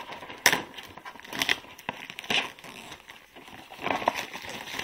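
Clear plastic shrink-wrap crinkling in about four bursts as it is torn open and pulled off a cardboard box.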